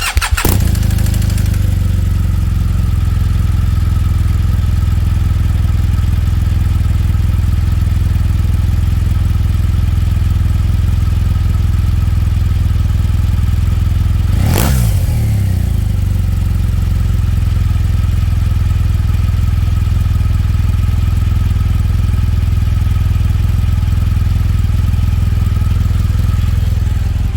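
A 2017 BMW R1200GS boxer-twin engine cold-started, catching at once and then idling steadily, with a clatter from the right-hand cylinder that dies away within a couple of seconds; the owner suspects the cam's cylinder decompression mechanism. One short rev about halfway through.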